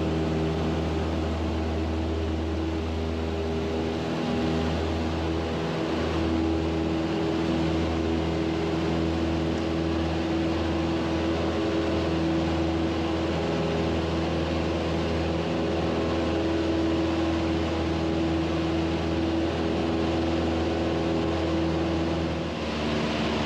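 Single-engine Cessna's piston engine and propeller running steadily, heard from inside the cockpit, an even drone with a constant pitch and a slight dip in level near the end.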